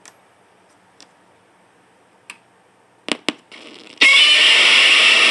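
A few sharp clicks, then about four seconds in a motorcycle start-up sound-effect module suddenly blasts a Godzilla roar clip through its small speaker, loud and distorted.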